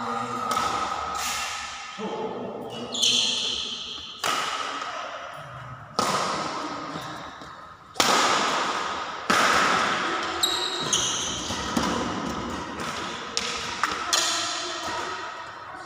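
Badminton rackets striking a shuttlecock in a rally, about ten sharp hits one to two seconds apart, each echoing in a large hall. A couple of short high squeaks of shoes on the court floor come in between.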